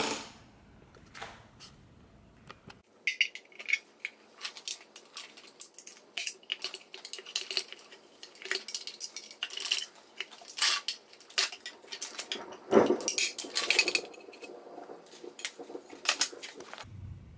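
Sharp metallic clinks and taps as the aluminium timing chain cover of a Honda F20C engine is worked loose from its sealant and lifted off the block, with one louder knock about three quarters of the way through.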